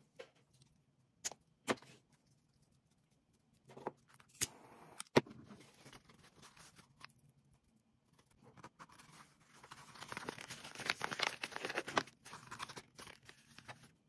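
Scattered sharp clicks, the loudest about five seconds in while a butane torch lighter is in hand, then a couple of seconds of crackly ripping and crinkling as the velcro-closed pouch of stiff windsurf-sail cloth is handled.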